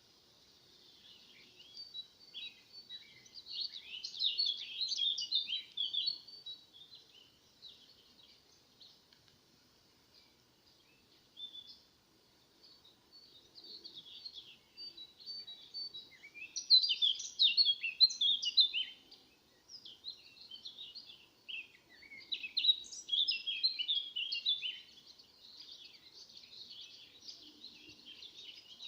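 Small songbirds singing: bursts of rapid, high twittering phrases, loudest about 4 s, 17 s and 23 s in, with sparser chirps between.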